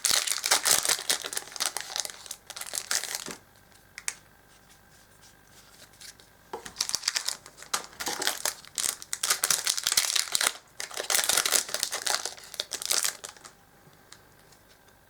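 Foil Yu-Gi-Oh booster pack wrappers being torn open and crumpled by hand, in two spells of crinkling: one for about three seconds, and a longer one from about six and a half seconds in, with a quiet lull between.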